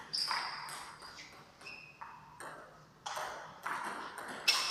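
Table tennis rally: the ball clicking off bats and the table, about eight sharp strikes roughly half a second apart, each with a short ringing ping, the loudest near the end.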